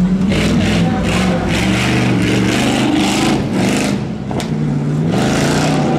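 Dodge Ram tuff truck's engine revving hard on a dirt course, its pitch stepping up and down with the throttle, with repeated short bursts of hiss. The engine sound dips briefly about four seconds in.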